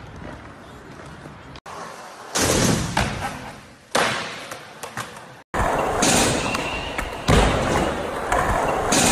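Skateboard wheels rolling and decks popping and landing, giving sudden slaps and thuds. The loudest come about two and a half seconds in and just after seven seconds. The sound cuts off briefly twice.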